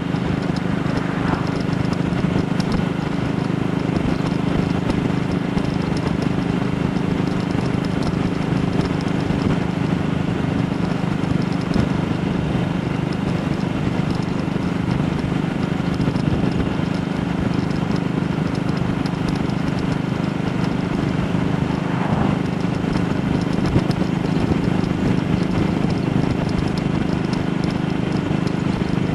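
AJS Model 8 motorcycle engine running at a steady speed under way, its exhaust beat even throughout.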